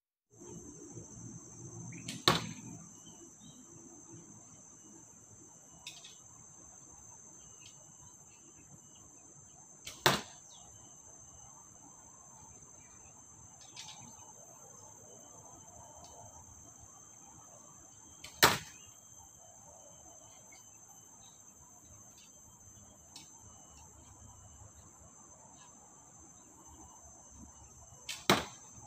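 Arrows striking a foam target boss on a wooden stand: four hits about eight seconds apart, each a sharp impact with a faint click just before it. A steady high insect buzz runs underneath.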